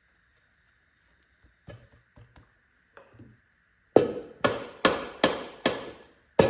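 A hammer striking metal during an engine teardown: a few light taps, then about four seconds in a quick run of hard blows, about two and a half a second, each ringing briefly.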